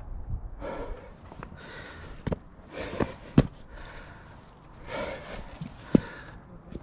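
A climber's heavy breathing while scrambling up rock, a breath about every two seconds, with a few sharp knocks of hands and boots on the rock. The loudest knock comes about three and a half seconds in, and another near the end.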